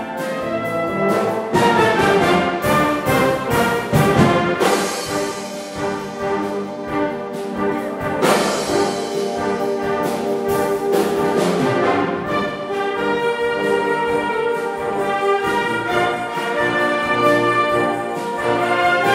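A wind orchestra playing, its brass section prominent over held chords, with a run of sharp percussion hits a few seconds in and another near the middle.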